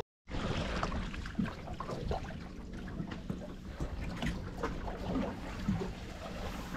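Wind buffeting the microphone and water lapping against the hull of a boat drifting at sea, with scattered small knocks and clicks.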